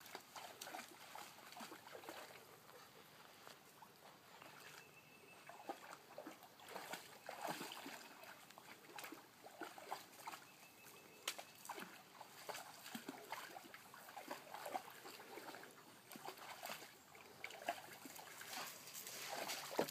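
A German shorthaired pointer wading in a shallow creek, the water splashing and sloshing faintly and irregularly around its legs as it moves.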